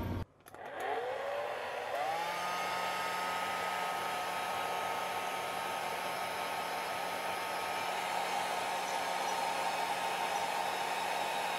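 Hair dryer switched on: its motor spins up with a rising whine about half a second in, steps up to a higher speed around two seconds in, then runs steadily with a high whine over a low hum.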